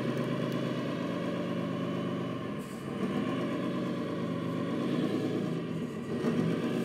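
RC truck's electronic sound module playing a diesel truck engine sound through its speaker: idling steadily, then rising and falling in pitch from about three seconds in as the truck drives off and turns.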